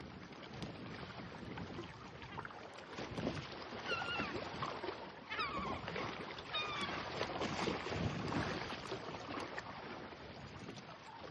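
Gulls calling: three short calls about four, five and a half, and six and a half seconds in, over a steady rush of surf and wind.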